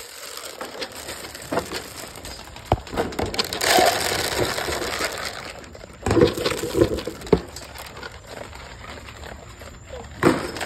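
Clatter around a wire dog crate at feeding time: a few sharp knocks on the metal crate and bowl, and a couple of seconds of rustling, crunching noise about four seconds in.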